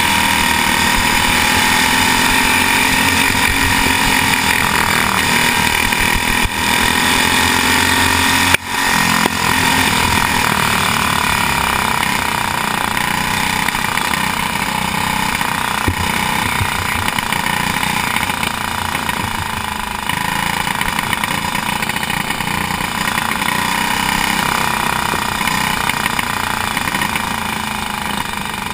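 Racing kart's engine running hard at speed, heard from a camera mounted on the kart, a steady high-pitched engine note with small rises and falls in pitch through the turns. A sharp click and a brief dropout in level come about a third of the way in.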